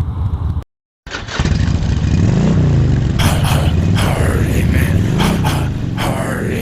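Harley-Davidson V-twin motorcycle engine running on the road, its pitch rising and falling twice as it revs and eases off. It starts after a brief dropout to silence about a second in.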